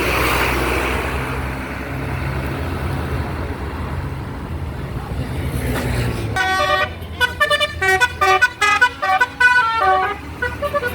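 A heavy vehicle's engine runs with a rushing noise. From about six seconds in, a Basuri multi-tone 'telolet' bus horn plays a quick tune of short, stepped notes that jump up and down in pitch.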